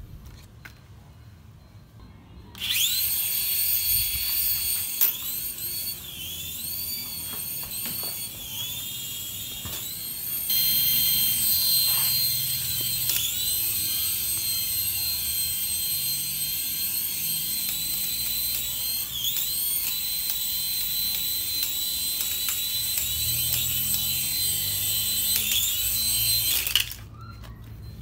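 Twin coaxial rotor motors of a small toy RC helicopter running with a high-pitched electric whine. It starts suddenly a couple of seconds in, dips and rises in pitch again and again as the rotors change speed in flight, goes up a step about ten seconds in, and cuts off suddenly shortly before the end.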